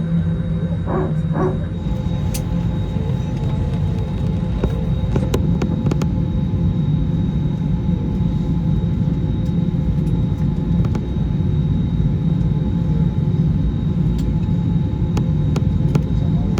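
Steady low rumble and hum of airliner cabin noise aboard an Airbus A321neo, with a few faint clicks.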